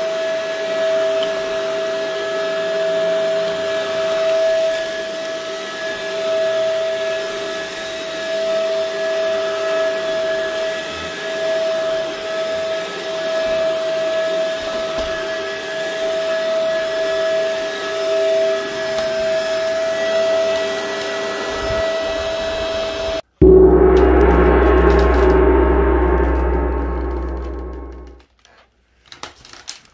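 Shark upright vacuum cleaner running steadily over an area rug, a motor hum with a high whine. A few seconds before the end the sound cuts out briefly. A louder burst of the motor follows and fades away to a stop.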